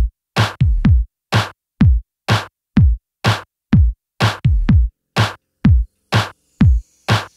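Background electronic music: a drum-machine beat of deep kick drums with a falling pitch alternating with sharp snare hits, about two hits a second.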